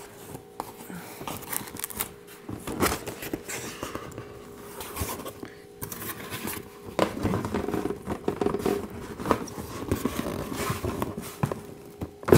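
Large cardboard-and-plastic toy box being wrestled open: irregular scraping, rustling and sharp clicks of packaging being pulled and cut.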